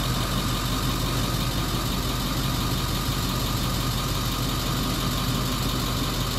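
An engine idling steadily, a constant low hum with no change in speed.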